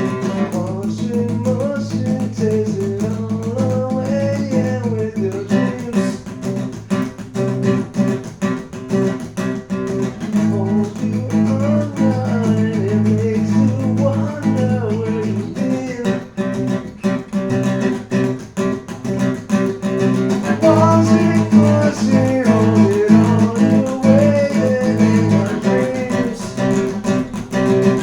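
Music: strummed acoustic guitar with a wavering melody line on top.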